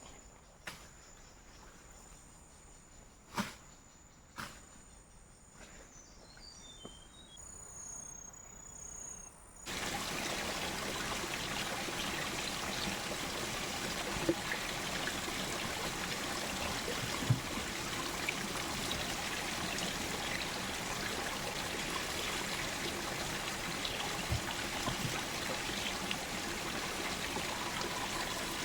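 Flowing stream water: a steady, even rush that starts suddenly about ten seconds in. Before it there are only faint high insect-like tones and a few soft clicks.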